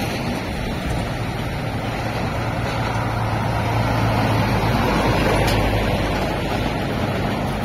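Diesel engine of a loaded car-transporter lorry pulling away close by. Its low, steady note builds over the first few seconds and eases off about five seconds in.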